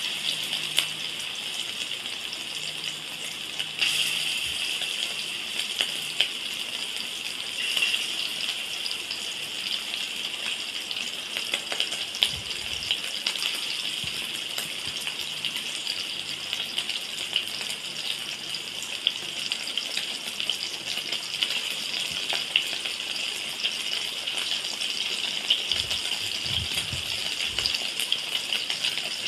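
Meatballs frying in hot oil in a stainless-steel wok: a steady sizzle with many small pops and crackles, flaring up briefly about four and eight seconds in.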